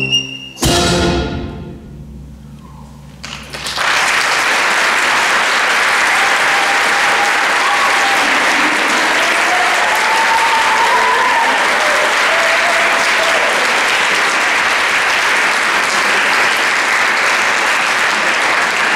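A high school concert band ends its piece on a final loud chord that rings out. After about two seconds of near quiet, the audience breaks into steady applause that lasts to the end.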